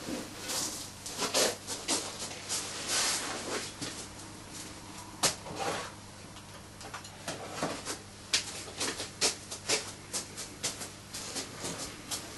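Hand work with a short length of wire at a taxidermy body form: irregular small clicks and taps with brief rustles.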